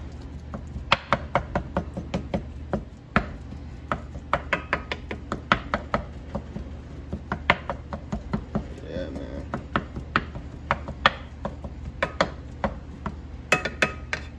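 Wooden spatula chopping and breaking up raw ground beef in a nonstick frying pan: repeated sharp taps of the spatula's edge against the pan at an irregular pace, a few a second.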